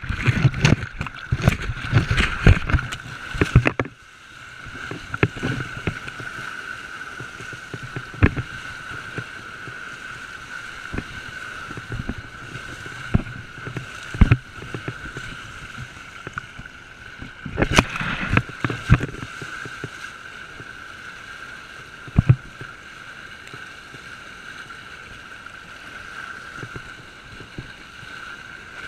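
Seawater splashing and rushing over a GoPro on a surfer in the surf, over a steady hiss of moving water. There are heavy bursts of splashing in the first four seconds and again about eighteen seconds in, with single sharp slaps of water in between.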